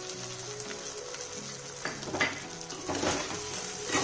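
Rice and whole spices sizzling in hot ghee in an aluminium pressure cooker. From about two seconds in, a metal spatula scrapes across the pan several times as the rice is stirred.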